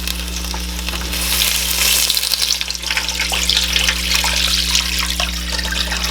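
Water poured into a hot pot of onion, ginger and garlic frying in oil, sizzling and splashing, with the hiss growing stronger about a second in. This is the start of the miso ramen broth.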